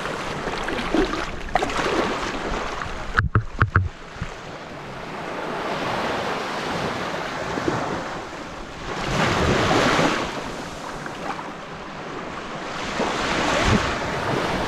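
Small waves lapping and washing up onto a sandy beach, the wash swelling and fading twice in the second half. A quick run of sharp clicks a few seconds in.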